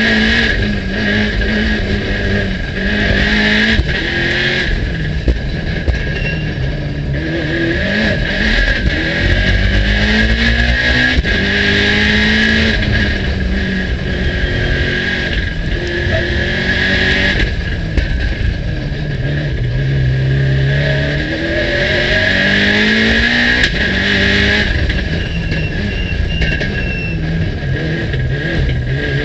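Mitsubishi Lancer Evolution's turbocharged four-cylinder engine heard from inside the cabin, revving hard through the gears. The pitch climbs again and again as it accelerates and upshifts, and falls away as it brakes and downshifts for the bends, over a steady high whine.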